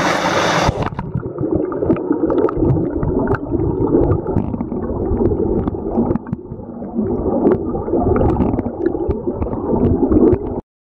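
Stream water rushing over rocks, then, from under a second in, the muffled sound of moving water heard through a submerged camera. It cuts off abruptly near the end.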